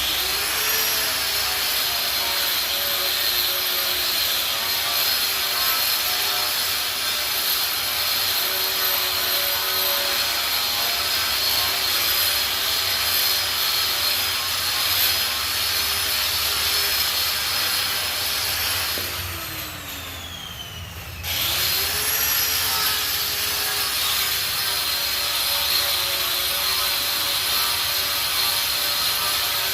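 Angle grinder working rust off a steel welding table top, running steadily under load. About 19 seconds in it is let off and winds down with a falling whine, then is started again about two seconds later, its pitch rising back up to speed.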